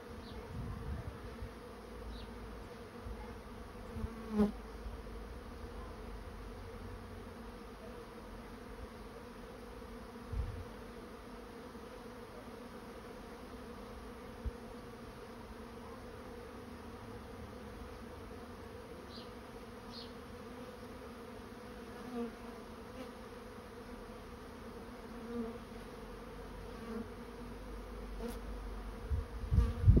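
A honey bee swarm in flight, buzzing steadily as it moves into a swarm trap, with single bees now and then passing close in brief, louder buzzes. A couple of low bumps come near the end.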